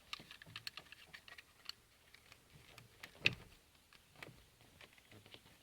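Scattered light clicks and taps of a screwdriver working a plastic dimmer switch out of its clips in a dashboard switch panel, with one sharper click a little over three seconds in.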